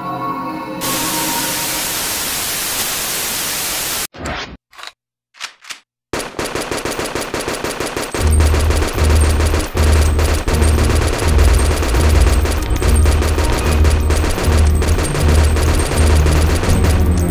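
Produced hip-hop intro sound design: a burst of static-like hiss, then a near-silent gap broken by a few sharp cracks. After that comes sustained rapid machine-gun fire, and a heavy bass beat comes in under it about eight seconds in.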